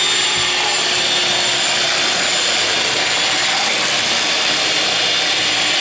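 Vitek electric hand mixer running steadily, its beaters whisking eggs and sugar in a bowl.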